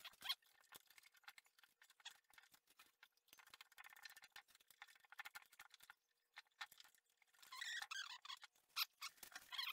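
Faint clicks and squeaks from the strings of an acoustic guitar being unwound and pulled off, with a longer squeaky stretch near the end.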